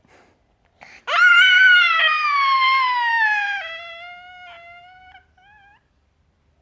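A toddler of about 13 months squealing: one long, high-pitched vocal squeal that shoots up at the start, then slides slowly down in pitch and fades, ending in a few short rising squeaks.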